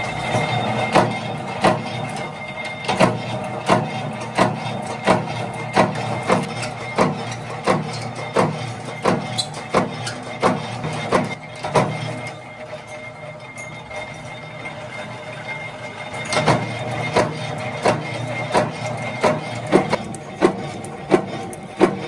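Flywheel-driven mechanical punch press running and punching blanks from a steel strip, each stroke a sharp metallic impact, about one and a half strokes a second. The strokes pause for a few seconds just past halfway, then start again.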